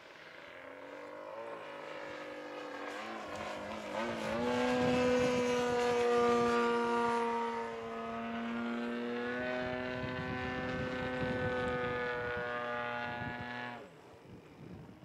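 Model plane's AGM-30 30 cc gasoline engine, breathing through a four-chamber muffler, running hard in flight during its break-in. It grows louder over the first few seconds with its pitch wavering, holds a steady pitch, then drops off suddenly near the end.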